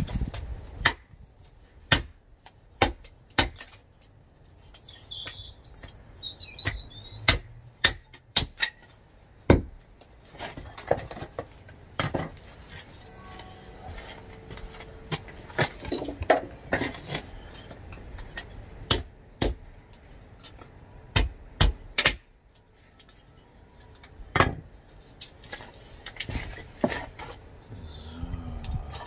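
Kindling being chopped: sharp, irregular chops of a blade into wood, sometimes two or three in quick succession. A few bird chirps come in about five to seven seconds in.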